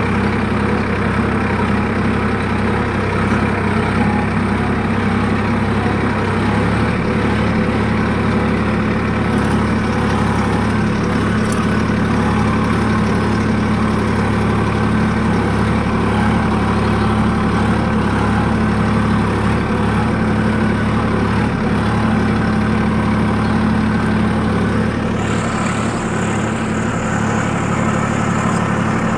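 Sonalika DI 47 tractor's diesel engine running steadily while pulling a nine-tyne cultivator through tilled soil.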